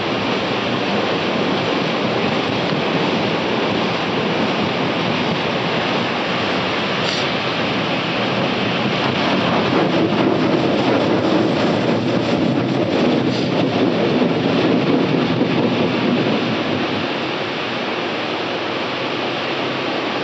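Automatic car wash's high-pressure water jets spraying over the car, heard from inside the closed cabin as a steady rushing hiss. It swells louder about halfway through, then eases off a little near the end.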